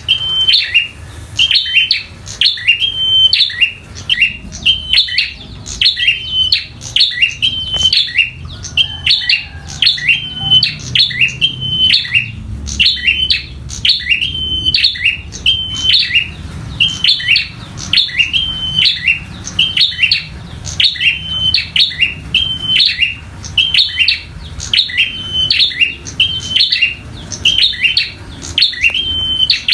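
Prenjak (prinia) giving its 'tarung' fighting call: the same sharp, high-pitched chirping phrase repeated about once a second without pause, over a faint low hum.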